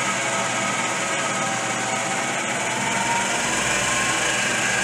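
Vertical milling machine's spindle running steadily in low back gear at about 260 RPM, with a large slotting cutter spinning free, not yet cutting. The sound is a steady mechanical hum and whine.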